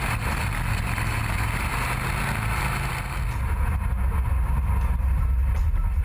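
Steady low rumble of a drag-racing car heard from inside its enclosed cockpit. A rushing noise on top of it fades away after about three seconds.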